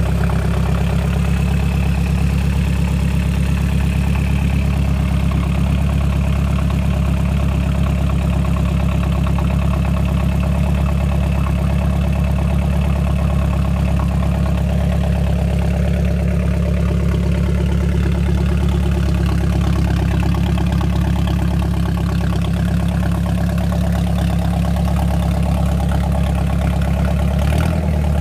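Volvo Penta 3.0L GS marine inline four-cylinder engine idling steadily.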